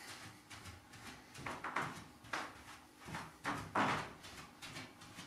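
Quick small steps shuffling on a carpeted floor, about four a second, with two louder swishing sounds about two and four seconds in.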